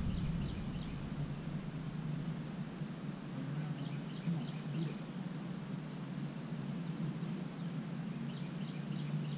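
A bird singing three short bursts of quick repeated high chirps, over a steady low rumble of outdoor background noise.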